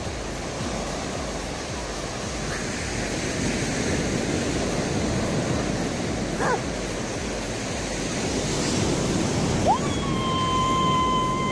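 Waves breaking and washing up the shore, a steady rush of surf. Near the end a high, steady held note from a voice begins.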